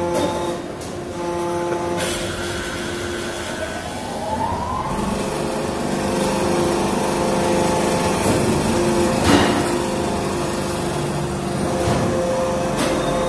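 Hydraulic salt block press running with a steady machine hum; a hiss sets in about two seconds in, a tone rises in pitch around four to five seconds in, and there is a sharp knock about nine seconds in.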